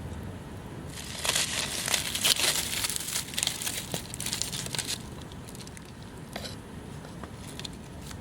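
Crinkling and crumpling of something being handled, dense from about a second in for about four seconds, then a few scattered crackles.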